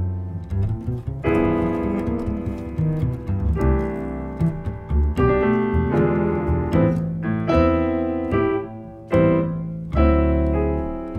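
Grand piano playing jazz chords and runs, with a plucked upright double bass sounding low notes underneath.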